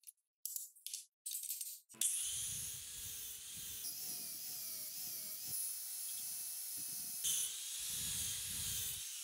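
A chisel scraping wood in a few short strokes, then about two seconds in an electric angle grinder with a sanding disc starts up and runs against wood. Its steady motor tone shifts higher partway through and drops back near the end.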